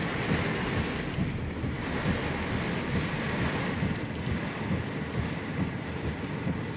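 Heavy rain pouring down in a thunderstorm, with wind buffeting the microphone in gusts.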